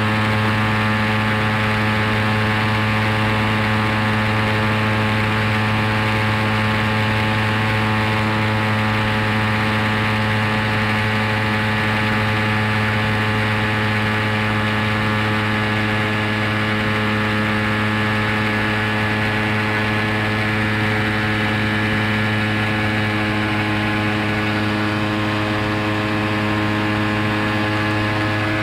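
Rans S-12 Airaile ultralight's engine and propeller running steadily at flying power, heard from inside the cockpit as a constant low drone with a rush of air.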